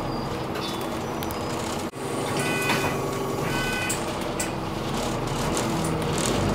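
Alexander Dennis Enviro400 double-decker bus's diesel engine idling steadily while standing at a stop. About two and a half seconds in come two short runs of electronic beeps, followed by a few clicks. The engine grows louder near the end as it begins to pull away.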